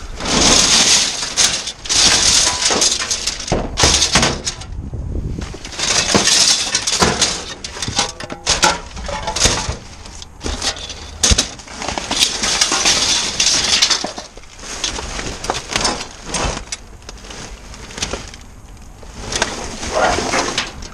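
Plastic bags and plastic-wrapped packaging crinkling and rustling as hands rummage through a metal bin, with many sharp clicks and clatters of items knocking together. It eases off for a few seconds a little past the middle, then picks up again near the end.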